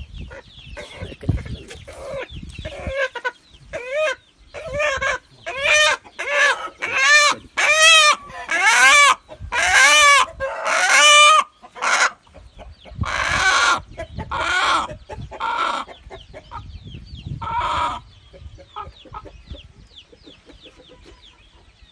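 A rooster held by hand just after being caponized, squawking loudly: a run of harsh calls about one a second that builds, peaks in the middle, then dies away a few seconds before the end. Low thuds of handling come in the first few seconds.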